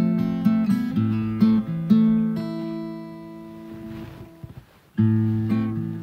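Acoustic guitar playing plucked and strummed notes. The sound dies away almost to nothing a little past the middle, then comes back in full about a second before the end.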